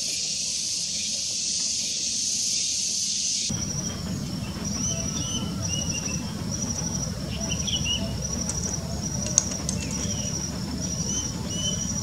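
Insects in the undergrowth: first a steady high hiss, then, after a sudden change a few seconds in, a high insect chirp repeating about once a second. Short high bird notes are scattered over it.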